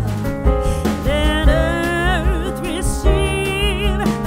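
Background music: a sung melody with vibrato over a steady bass accompaniment.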